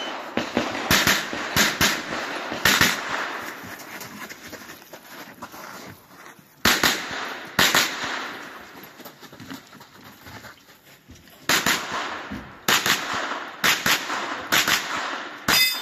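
Pistol-caliber carbine firing about ten shots, singly and in quick pairs, with pauses of a few seconds between groups. Each shot is a sharp crack followed by a brief ring-out.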